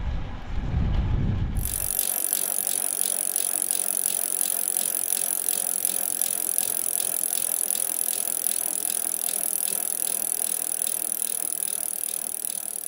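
Road bike's rear freehub ticking rapidly as the wheel spins without pedalling, the coasting click of the ratchet pawls. Wind buffets the microphone for the first two seconds, then the ticking is heard alone and fades out near the end.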